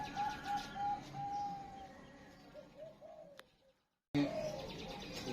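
Zebra dove (perkutut) cooing: a quick run of short arched coo notes, one longer held note, then a few slower notes. The sound cuts out completely for about half a second around three and a half seconds in, and the cooing then resumes.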